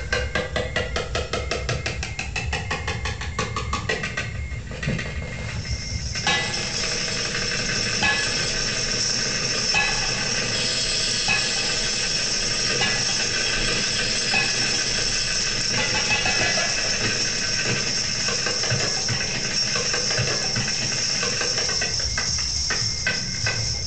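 Darbuka (Middle Eastern goblet drum) played in fast, even strokes for about six seconds, then held in a long, continuous hissing roll with a few accents. Separate strokes come back near the end.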